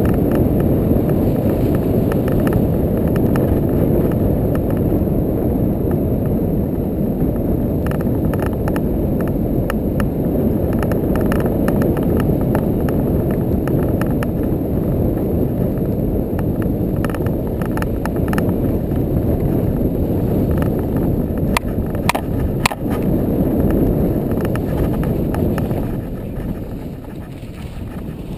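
ATV riding a snowy track: a steady engine-and-ride drone mixed with wind buffeting the mounted camera's microphone, with scattered knocks and clicks. The sound drops quieter about two seconds before the end.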